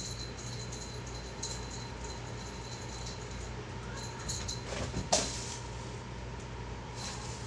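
Steady low room hum with a few faint clicks, and a brief rustle about five seconds in.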